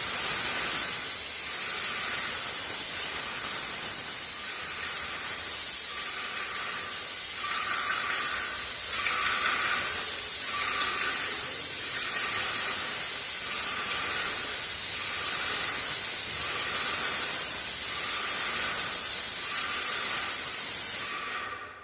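HYVST SPT 210 airless paint sprayer spraying paint in a steady hiss, swelling and fading about once a second, then cutting off suddenly near the end.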